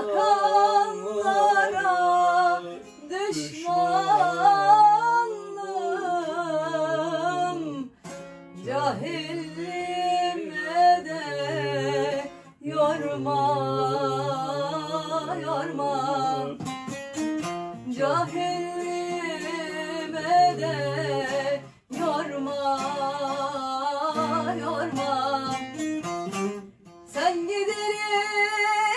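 A Turkish folk song sung in phrases of a few seconds with short breathing gaps, over a bağlama (long-necked Turkish lute) plucked in accompaniment.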